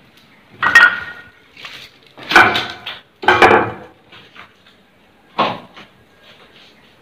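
Four loud clattering knocks of hard objects, with fainter knocks between them, each dying away with a short ringing tail.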